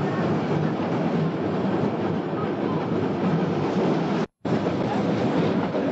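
Tram running on its rails: a steady rolling rumble that cuts out completely for a split second about four seconds in.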